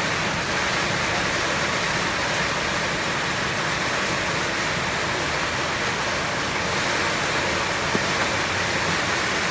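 Steady hiss of heavy rain.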